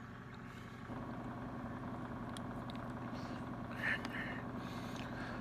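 Steady low mechanical hum, a little louder from about a second in, with a faint short sound near four seconds.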